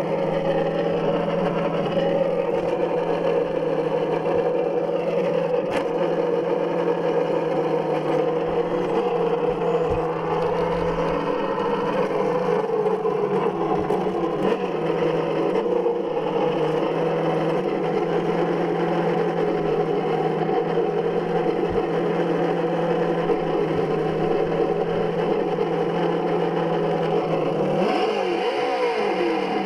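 Simulated engine sound from the sound module fitted to a Traxxas Slash 4x4 Ultimate RC truck, played through its speaker: a steady, bassy idle burble from the parked truck. About 28 seconds in, the pitch shifts and the sound begins to change.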